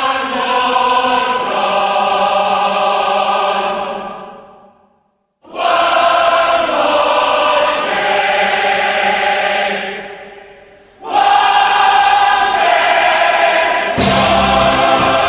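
Choral music: a choir singing long held chords in three phrases. The first phrase fades out into a brief silence and the second fades before the next begins. A deeper accompaniment joins near the end.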